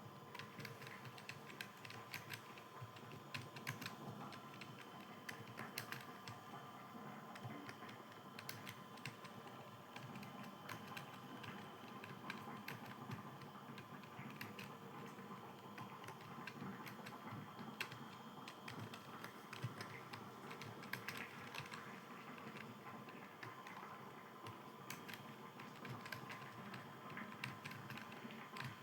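Fast, irregular typing on a computer keyboard: a steady patter of key clicks over a faint hum.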